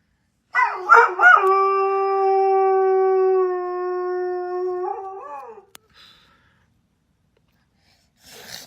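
A dog howling: a few short rising yelps, then one long steady howl of about three and a half seconds that wavers up at its end.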